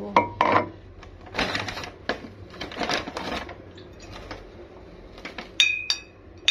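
Paper shopping bag rustling in two bursts as bottles are lifted out, then glass beer bottles clinking together a few times near the end, each clink ringing briefly.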